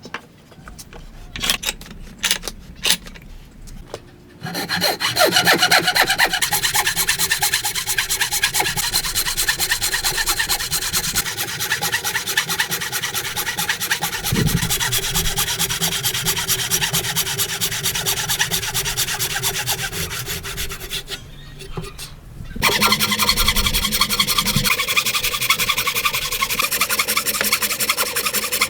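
Hand saw cutting through wood in steady strokes, after a few light knocks. The sawing stops briefly about three-quarters of the way through and then resumes.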